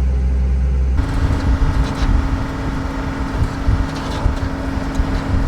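A vehicle's engine running and rumbling on the move, heard from inside the cab, with a steady hum under an uneven low rumble. The sound changes abruptly about a second in.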